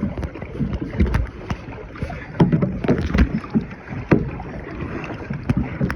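Kayak paddling: irregular surges of water sloshing and splashing, with scattered sharp knocks.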